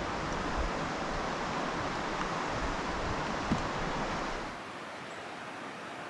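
Steady rush of water flowing over the falls, with wind rumbling on the microphone. A little over four seconds in, it drops to a quieter, thinner rush without the wind rumble.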